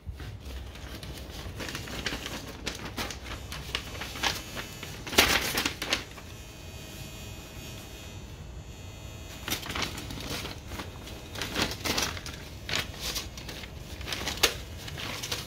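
Kraft-paper envelopes rustling and crinkling as piston rings are slipped into them and the envelopes are handled, in irregular bursts with a few sharper crackles.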